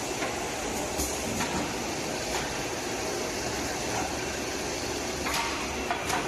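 Steady running noise of a CNC six-sided multi-boring machine line, with a few short clicks and knocks about a second in, at one and a half and two and a half seconds, and twice near the end.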